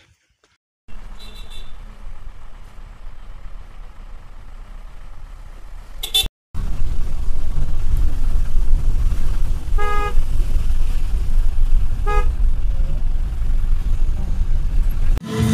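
Road traffic: a steady low rumble of engines and tyres with vehicle horns honking, one short honk just before a cut and two more short honks a couple of seconds apart in the louder second half.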